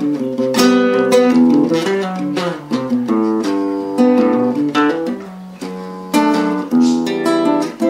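Acoustic guitar (violão) music: chords strummed and plucked about once a second, each left to ring.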